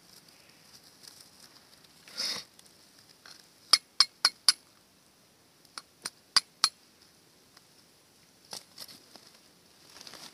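Steel striker hitting English flint, sharp metallic clicks in two quick runs of four strikes about two seconds apart, with a few weaker strikes later: throwing sparks onto char cloth to catch an ember. A short rustle comes about two seconds in.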